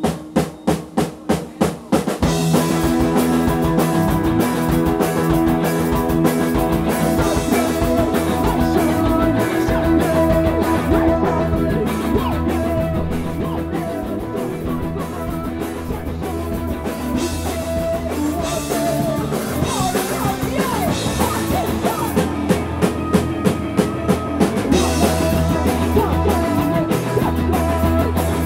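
Live punk rock band playing a song. It opens with about two seconds of sharp hits, about four a second, then electric guitars, bass and drums come in together and play on steadily, with a woman singing lead.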